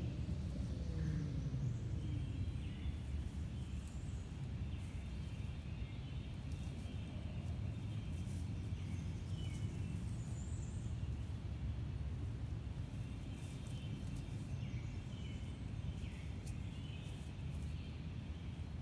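Birds chirping in woodland over a steady low rumble.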